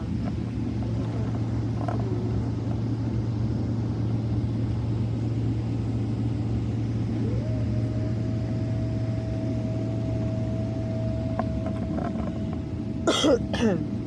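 Jet airliner's engines heard from inside the cabin during the takeoff run: a steady low rumble, with a whine that rises about halfway through and then holds steady.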